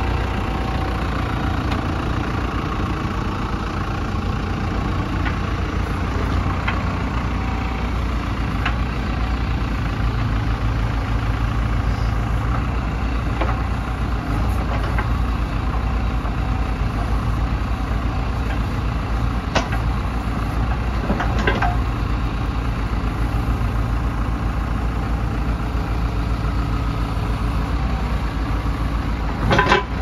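JCB 2CXSM backhoe loader's diesel engine running steadily at idle, with a few short knocks about two-thirds of the way through and a brief louder clatter near the end.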